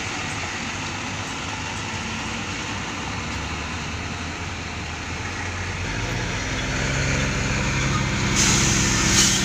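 Diesel dump truck engines running as the trucks move slowly over rough quarry ground. A second truck's engine grows louder over the last few seconds, and a short hiss comes near the end.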